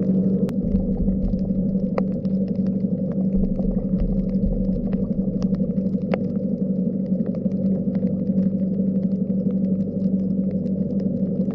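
Underwater sound on a shallow coral reef: a steady low drone with scattered sharp clicks throughout.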